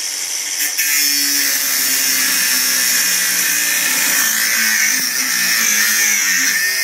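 Milwaukee M18 cordless 4½-inch cut-off grinder (2680-20) with an abrasive cut-off wheel cutting through half-inch steel rebar: a loud, high-pitched grinding that starts as the wheel bites, about a second in, over the motor's whine. Near the end the motor's pitch sags as the wheel is pushed hard into the cut.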